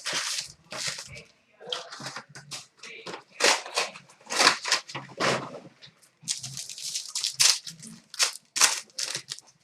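Plastic-wrapped hockey card boxes and foil packs being torn open and crinkled, with a rapid, irregular run of rips and rustles.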